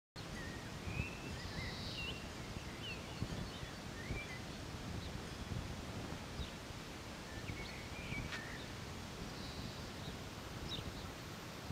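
Birds chirping in scattered short calls and trills over a steady low background rumble, typical of outdoor ambience with wind on the microphone.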